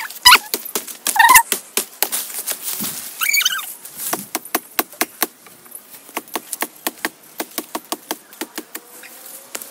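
Sharp, repeated knocks of a blade hacking at bhimal tree branches, several strokes a second, cut for cattle fodder. A couple of short high-pitched calls sound near the start and again about three seconds in.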